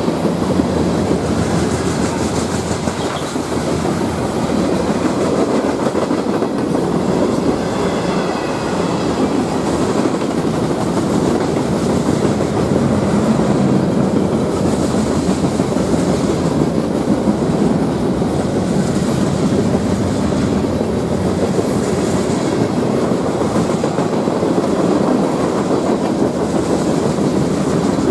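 Freight train cars rolling past close by: a steady rumble of steel wheels on rail with clickety-clack over the rail joints, and a brief faint squeal about eight seconds in.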